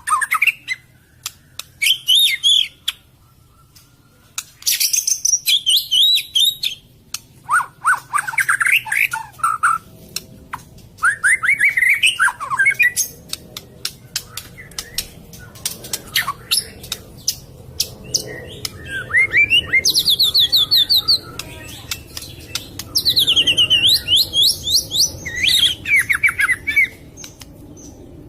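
White-rumped shama (murai batu) singing: a long run of varied whistled phrases, many sliding up or down in pitch, mixed with sharp rapid clicks, with short pauses between phrases.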